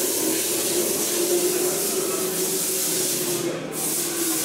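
Scale RC crawler's electric motor and geared drivetrain whining steadily under throttle as the truck crawls up a dirt climb, with a hiss over it that drops out briefly about three and a half seconds in.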